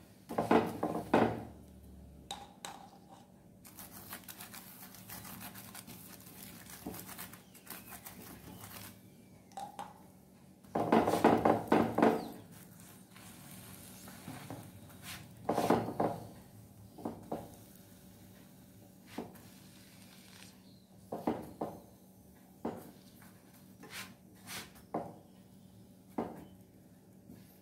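Stainless-steel slotted spatula scraping and knocking on a non-stick pan while a chapati fries in ghee, over faint sizzling. The spatula sounds come in short scattered strokes, with a denser, louder run of scraping about eleven seconds in and another burst near sixteen seconds.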